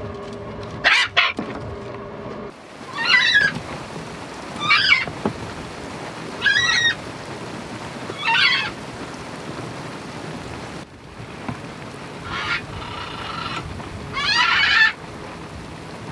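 Sailboat mast winch squealing with each turn of the winch handle as the sail is hoisted: six honking squeals at a steady pace of about one every two seconds, with a pause in the middle.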